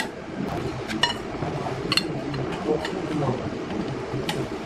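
Light metallic clinks and taps as a steel bracket and a galvanized square tube are handled and fitted together, a few sharp clicks about a second apart, over a steady low background noise.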